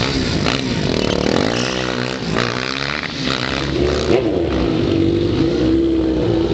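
Stunt quad bike engine revving up and down, then holding a steady high note from about four seconds in.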